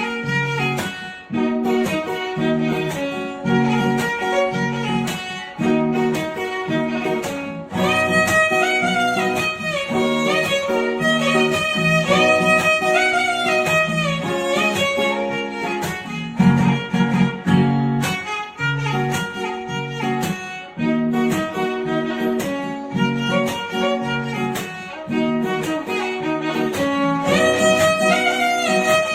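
Background music: a violin melody over a plucked guitar accompaniment.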